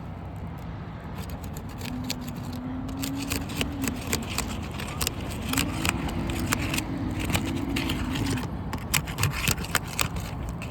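Asphalt shingle tabs being pried up, their adhesive seal strips cracking loose in many quick crackles and scrapes. A low hum sounds twice, from about two to four seconds in and again from about five and a half to eight.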